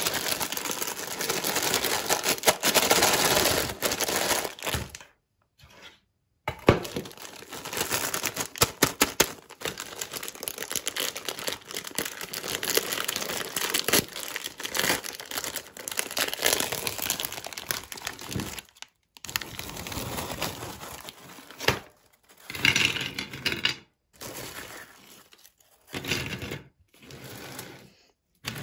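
Plastic snack packet crinkling and tearing open as it is handled, with light knocks of hard snack sticks tipping onto a plate, broken by several short silences.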